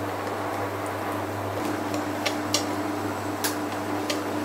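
Wire whisk stirring melting chocolate and butter in a stainless steel bowl over a water bath, its wires ticking lightly against the metal a few times in the second half, over the steady hum of an induction hob's cooling fan.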